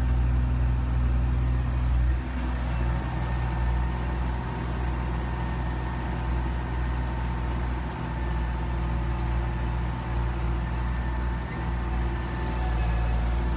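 Belarus MTZ 820 tractor's four-cylinder diesel engine running steadily under load while pulling a disc plough, heard from the operator's seat. The sound dips slightly in loudness about two seconds in and then holds steady.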